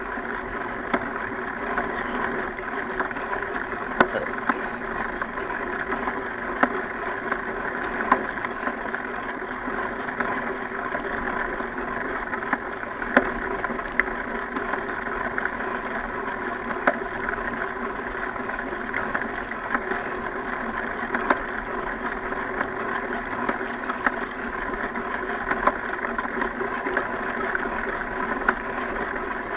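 Steady rolling noise of a mountain bike ridden along a dirt trail, with scattered sharp clicks and knocks from the bike over the rough ground.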